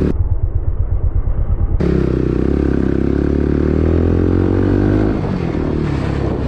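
Bajaj Pulsar NS160's single-cylinder engine through an aftermarket SC Project exhaust: a low, pulsing exhaust note for the first second and a half, then a steady engine note as the bike pulls away, easing back after about five seconds.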